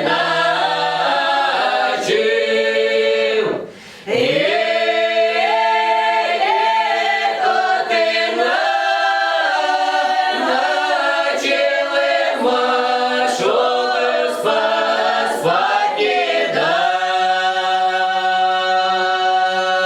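Russian folk ensemble singing a lyrical village song a cappella in several voices, with long drawn-out melismatic notes and a short break for breath a little before four seconds in.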